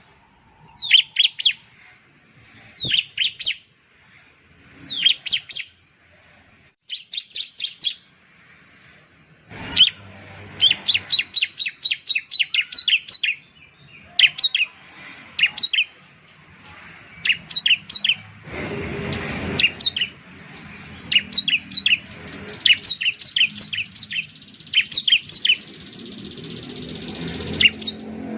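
Bar-winged prinia (ciblek) calling: repeated runs of sharp, high, quickly falling chirps, each run a few to a dozen notes long, with short pauses between. A brief rush of noise comes about two-thirds of the way through.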